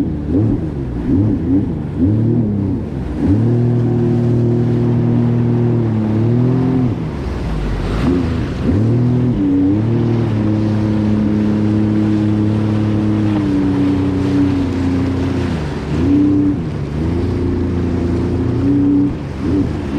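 Jet ski engine running under throttle, holding a steady pitch for a few seconds at a time, then dropping and rising again as the throttle is eased off and opened, with water splashing.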